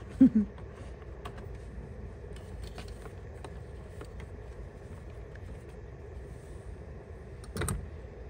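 Small ticks and scrapes of hand tools and plastic trim as a screw is taken out of a car's steering column cover, over a steady low rumble. There is a short sharp sound just after the start and a louder knock near the end.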